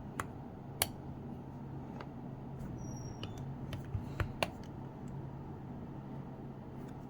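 Light clicks and taps of hands and tools working on a Bose SoundLink Color II speaker as it is taken apart. The clicks are scattered, with several close together around the middle, over a steady low hum.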